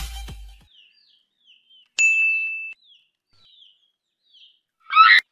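Background music fades out, then faint chick peeping runs on, a short downward peep about twice a second. A bright bell-like ding rings once about two seconds in and holds for under a second. A short, loud, high call comes near the end.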